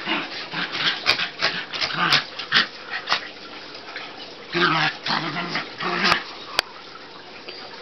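Puppies giving short, high cries in quick runs, with a pause near the middle and a few sharp clicks among them, dying down about a second before the end.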